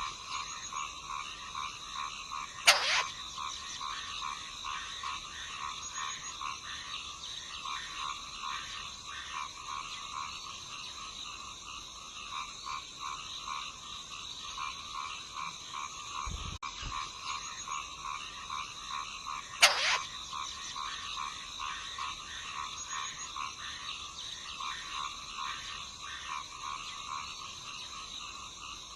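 Bird chicks giving rapid, rhythmic, raspy begging calls without pause. Two loud, brief calls that sweep down in pitch come a few seconds in and again about two-thirds of the way through.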